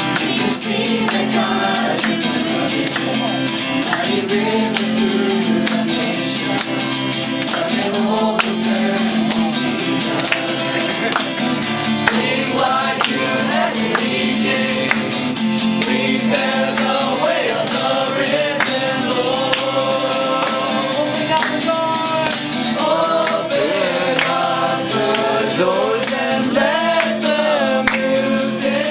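Christian worship music: voices singing a song with instrumental accompaniment.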